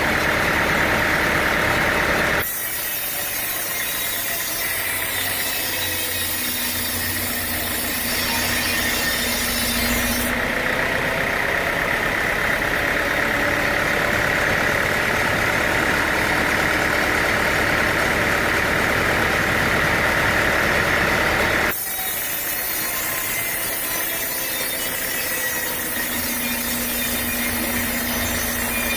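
Sawmill machinery running steadily: an engine-like drone with a steady high whine, changing abruptly at three edit cuts.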